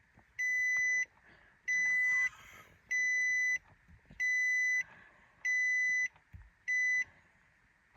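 2017 Nissan Armada's electronic warning chime: a high, steady beep repeating about every 1.2 seconds, six times, each beep just over half a second long and the last one cut short.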